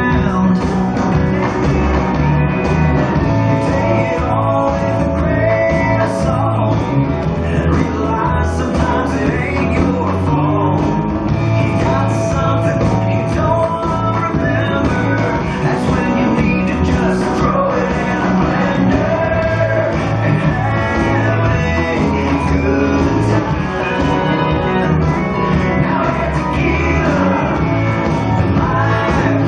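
Rock-and-roll song with singing and guitar over a steady dance beat: the track for a line dance.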